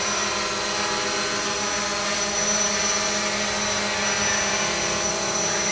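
Small quadcopter drone hovering, its propellers and motors giving a steady multi-toned whine. It is on a test hover after being repaired for damage from an earlier hard landing.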